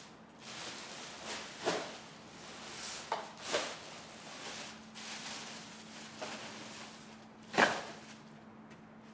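Objects being handled, with irregular knocks and clatters; the loudest knock comes about seven and a half seconds in. A faint steady hum runs underneath.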